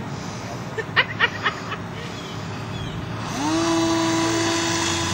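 A few sharp clicks, then about three seconds in the RC airplane's motor and propeller spin up quickly to a steady whine at full throttle for a takeoff run.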